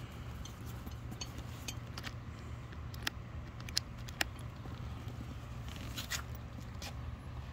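Sharp clicks and light knocks from a motorcycle saddlebag's plastic mounting plate and latch as the bag is handled and lifted off its side carrier, about nine in all, over a steady low rumble.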